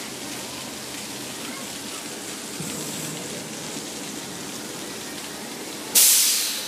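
Steady rushing noise like falling water or rain, with faint voices under it. About six seconds in, a sudden loud rush of noise breaks in and fades away.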